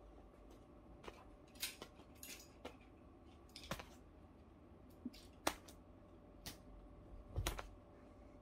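Quiet, irregular short rustles and taps as a cat plays with a wand toy on a quilted duvet: the fabric lure swishing and being swatted, and the cat pouncing. The loudest is a brief cluster with a dull thump near the end.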